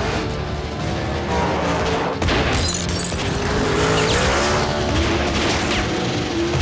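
Film car-chase soundtrack: a muscle car's engine revving hard as it races across dirt, mixed with a dramatic music score, with a sharp hit about two seconds in.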